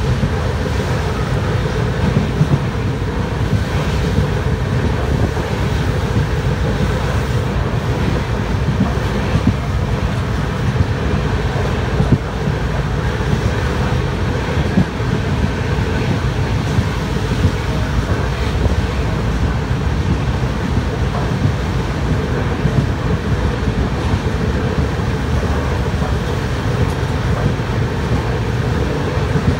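Express passenger train running steadily, heard from aboard a coach: a constant loud rumble of the train on the rails.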